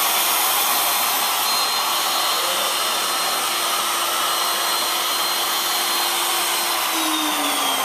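Router in a pin router table running with a steady rushing of dust extraction. About seven seconds in, the router's tone starts falling as it is switched off and coasts down.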